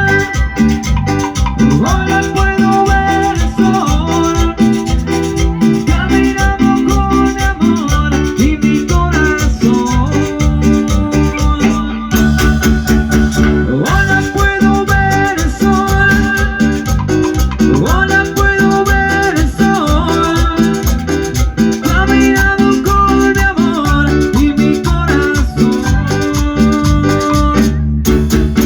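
Latin band music: melody lines over a steady bass beat and shaken percussion, played without a break.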